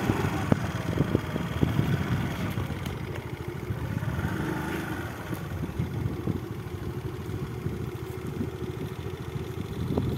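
Small engine running steadily at low revs.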